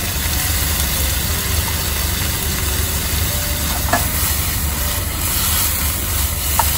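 Soy sauce sizzling as it hits sausages and mushrooms in a hot frying pan on a portable gas burner, with the pan shaken and tossed and a couple of light knocks of the pan against the burner about four seconds in and near the end. A steady low engine hum runs underneath.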